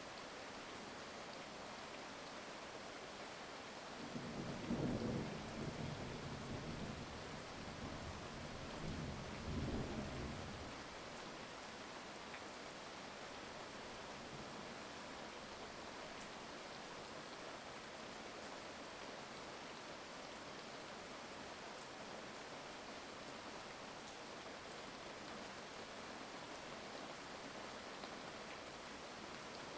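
Steady heavy rain hissing, with a roll of thunder rumbling in about four seconds in, swelling twice and fading out by about eleven seconds.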